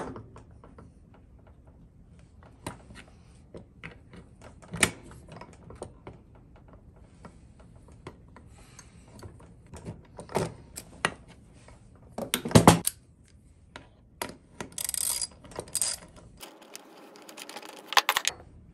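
Scattered metal clicks and clinks of wrenches and a gear puller being worked on the drive sprocket of a 66/80 cc two-stroke bike engine, with the loudest clinks about twelve and a half seconds in.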